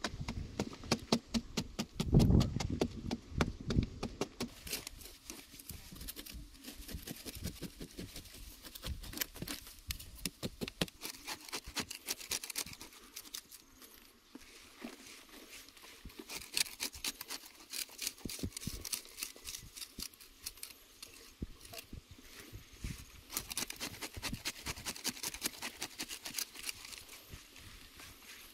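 A short-handled digging blade striking and scraping into hard, dry clay soil over and over in quick short strokes, with one heavier thud about two seconds in.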